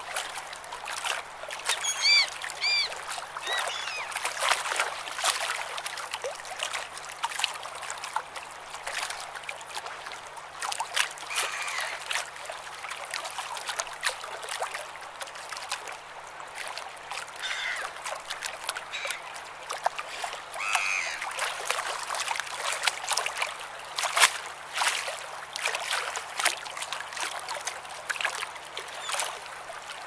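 Shallow sea water splashing and trickling at the shore in a steady wash of small splashes. Short arching seagull calls come about two seconds in, with a few fainter ones later.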